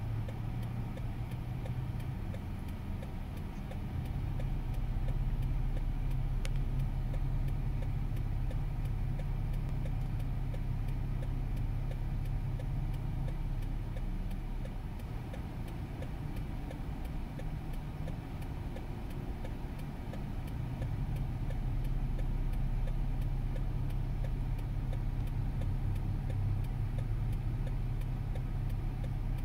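Steady low rumble of car engines and road traffic waiting and moving at an intersection, swelling slightly a few seconds in and again past the middle.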